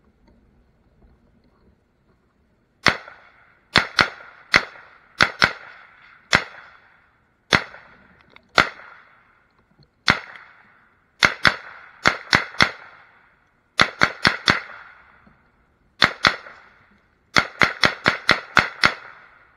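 A 7.62x39 AR pistol firing about thirty shots in quick strings of two to seven, the last string about five shots a second. Each crack is followed by a short echo.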